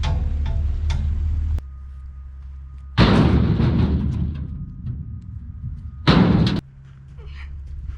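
Split firewood chunks tossed into a dump trailer's bed, each landing with a loud bang: one about three seconds in that trails off, and a shorter one about six seconds in. Before them, a steady low hum cuts off abruptly.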